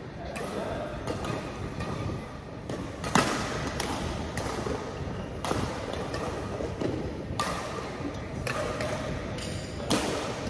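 Badminton rackets striking a shuttlecock during a rally, sharp hits every one to two seconds with the loudest about three seconds in, echoing in a large sports hall.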